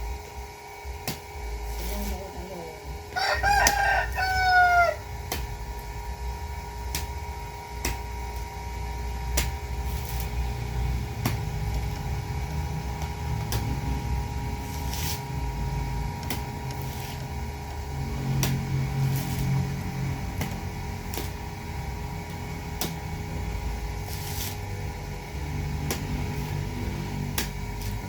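A rooster crows once, a few seconds in, in several pitched phrases ending in a long falling note. Around it are a low rumble and scattered short clicks.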